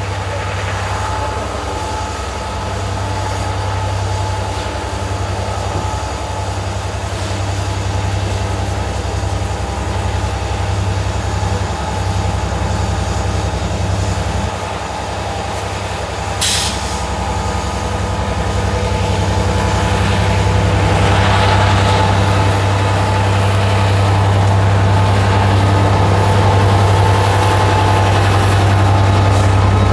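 Class 67 diesel-electric locomotive's two-stroke V12 running as it hauls its train of coaches in, the steady low engine drone growing louder as it draws close and passes. A brief sharp hiss comes about sixteen seconds in.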